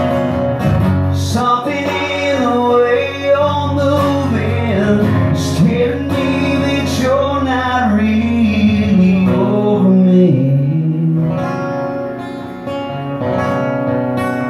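Acoustic guitar played live in a country song, with a man's singing voice.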